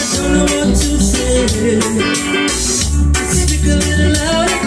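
Live band music with a woman singing through a microphone and PA, over a heavy bass line, guitar and steady drum beats.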